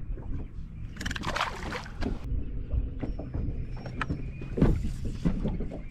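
Low rumble and irregular knocks on a fishing boat, with a brief rushing noise about a second in.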